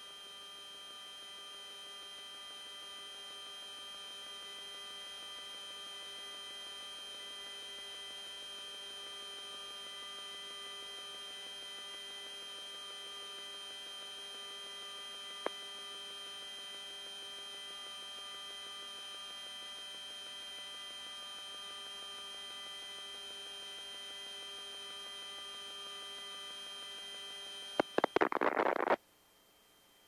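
Steady electrical hum on the radio audio line, made up of many steady tones. There is a single click about halfway through, and a short crackling burst near the end, after which the hum cuts off.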